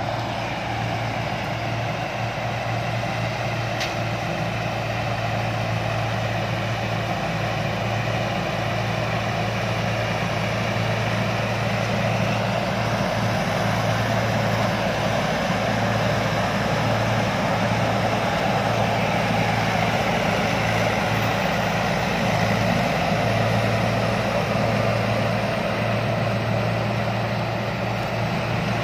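Combine harvester's engine running steadily with a continuous low hum and the even noise of the working machinery.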